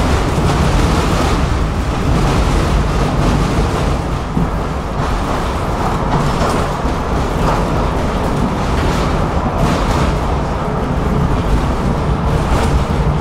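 A tram in motion heard from inside the passenger car: a steady rumble of the wheels and running gear on the rails, with a few light clicks and rattles.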